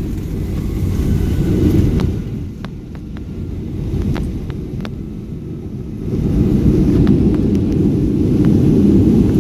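Cabin rumble of a Boeing 757-200 rolling out on the runway after landing: a loud low rumble from the engines and the wheels on the runway, with scattered sharp rattles from the cabin. It eases off about two seconds in and builds again about six seconds in.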